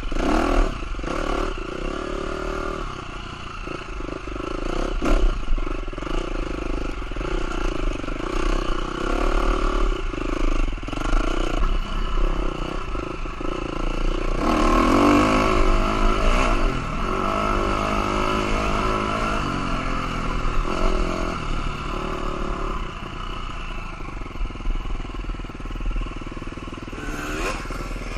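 KTM SX-F four-stroke dirt bike engine revving up and down as it is ridden hard over a rough trail, with clatter and knocks from the bike over bumps.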